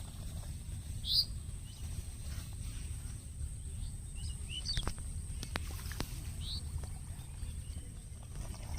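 Outdoor field ambience: a steady low rumble of wind on the microphone under a thin steady high tone, with a few short high bird chirps, the loudest about a second in, and a few sharp clicks around the middle.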